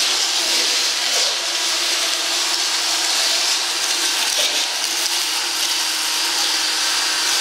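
Power drill spinning a large Velcro-backed sanding disc against crushed-stone inlay set in a camphor laurel bowl, sanding the stone down level with the wood. The abrasive grinding hiss and the drill's motor whine run steadily.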